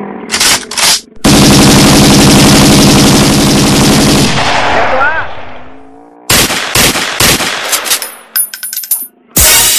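Small motorcycle engine running hard close by, a loud rapid pulsing that fades away over a couple of seconds as the bike rides off. Scattered clicks and knocks follow.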